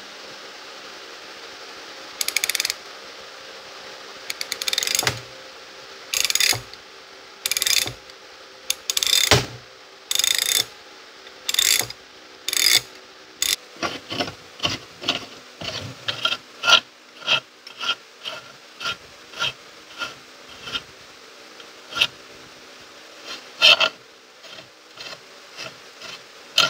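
Hand ratchet wrench clicking in repeated swings as the knuckle bolt at the rear lower control arm is backed out. The strokes come as longer bursts at first, then shorter, quicker clicks from about halfway through.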